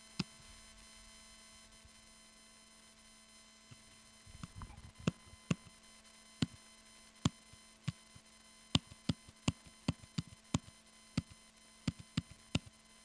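A single click near the start, then from about five seconds in about twenty separate keystrokes tapped on a laptop keyboard at an uneven pace, over a faint steady hum.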